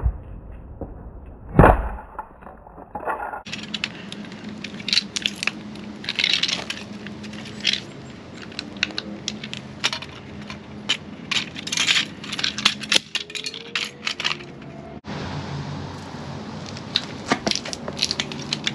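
Repeated sharp knocks, cracks and clinks as an all-metal 1/24-scale 1967 Ford Mustang model car is smashed and broken apart. One heavy thud a little under two seconds in is the loudest hit.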